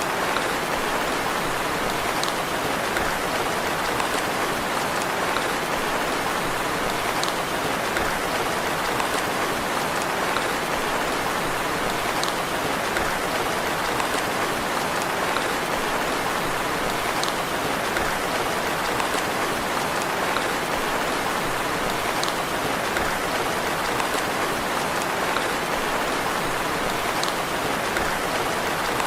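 Steady rain falling, a constant even hiss with occasional single drips ticking through it.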